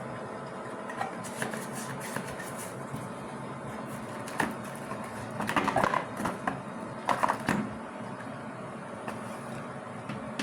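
Packaging being opened and handled: scattered rustles and clicks, loudest in a few clusters near the middle, over a steady low room hum.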